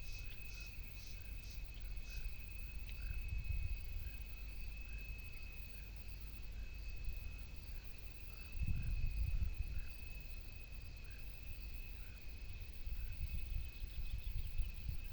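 Outdoor animal chorus: a steady high insect trill, with short calls from another animal repeating about once or twice a second, over a low rumble that swells about nine seconds in.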